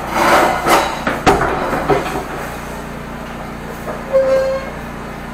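Gasoline engine of a high-pressure sewer jetter running steadily, with a few sharp knocks and clatters in the first two seconds and a brief steady tone about four seconds in.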